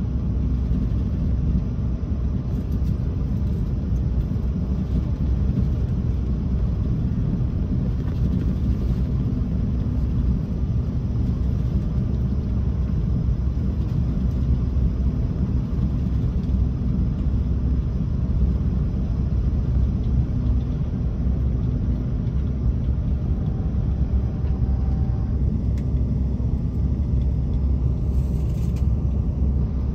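Renfe Class S120 high-speed train running, a steady low rumble that holds unchanged throughout, with a faint short tone about two-thirds of the way through.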